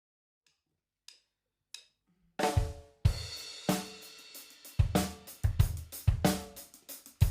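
A live funk band starts a song: three soft clicks about 0.6 s apart, then, about two seconds in, the full drum kit comes in with hi-hat, cymbals, snare and bass drum, along with bass and other pitched instruments in a steady groove.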